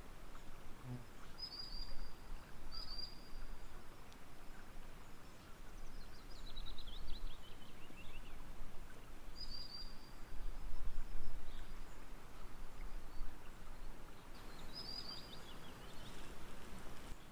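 Birds singing over a steady background hiss: short high chirps several times and a falling trill twice, with low rumbling underneath.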